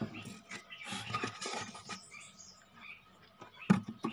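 Irregular clicks, scrapes and knocks of a screwdriver and hands working inside an amplifier cabinet, with a sharper knock near the end.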